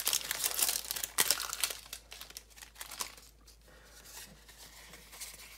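Crinkling of a foil booster-pack wrapper and trading cards being handled, with a busy run of crinkles and small clicks over the first two seconds that then fades to faint handling.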